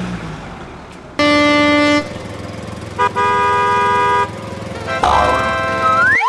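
Cartoon vehicle sound effects: a motor vehicle running, with two horn honks, the first about a second in and the second about three seconds in, each held for about a second. Near the end comes a short rising whistle.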